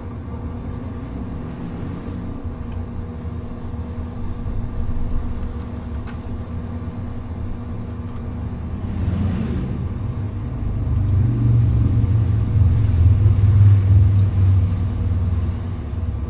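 Low vehicle rumble that swells to its loudest about eleven to fifteen seconds in and eases near the end, over a steady background hum.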